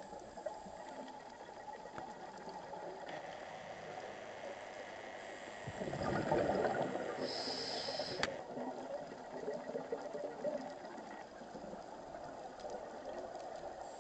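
A scuba diver's regulator breathing underwater over a steady watery hiss: a burst of exhaled bubbles about six seconds in, then a short hiss of the next inhale, and a single sharp click just after it.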